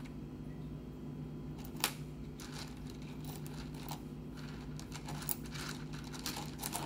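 Rough opal pieces being handled, with a scatter of small clicks and rustles from about two seconds in, the sharpest one at two seconds, over a steady low hum.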